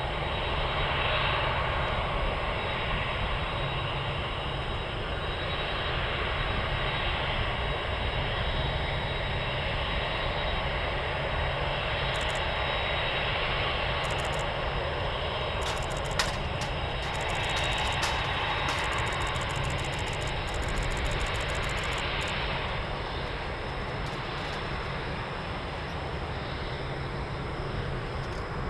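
Boeing 747-8F freighter's four jet engines running, a steady dense rumble and rush with a thin high whine, easing slightly near the end.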